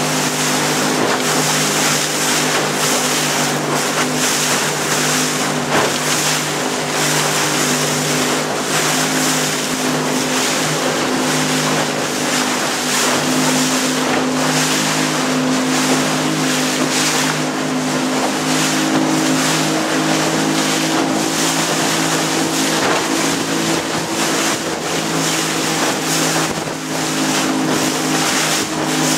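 A small boat's motor running steadily under way, a constant hum, with wind rushing over the microphone and water noise from the moving hull.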